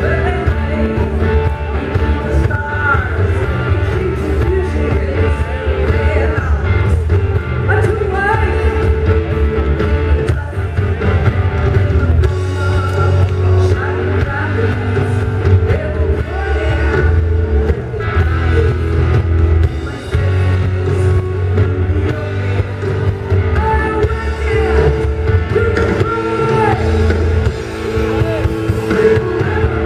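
A live rock band playing loudly: a woman's lead vocal over electric guitars and bass guitar with a steady beat.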